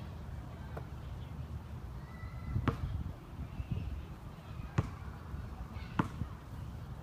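Basketball bouncing on a painted hard court: three separate dribbles, the second about two seconds after the first and the third a second later, over a steady low rumble.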